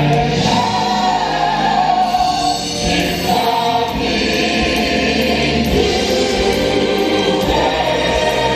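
A stage-musical song: an ensemble sings sustained, choir-like lines over a music track.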